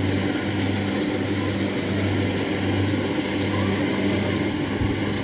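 Kubota DC-70 combine harvester's diesel engine running steadily as the machine cuts rice, a constant low hum with a slight rhythmic pulsing.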